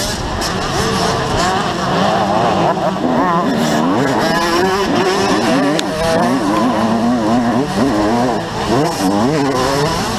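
Motocross bike engine revving up and down over and over as the rider works the throttle and shifts gears, heard from a helmet camera.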